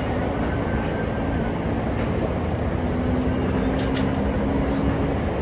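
A steady, loud mechanical rumble with a low droning hum, like running heavy engines or machinery.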